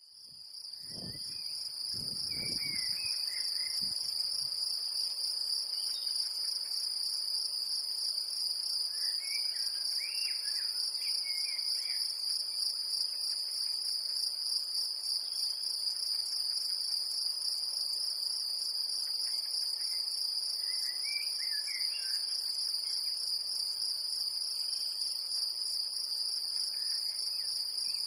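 Great green bush-cricket stridulating: a continuous, high, rapidly pulsing buzz that goes on without a break.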